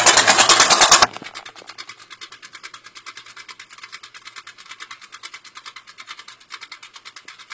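V8 engine swapped into a small tractor, running through open chrome headers with a fast, even pulsing. About a second in the sound drops abruptly to a much fainter, thinner pulsing.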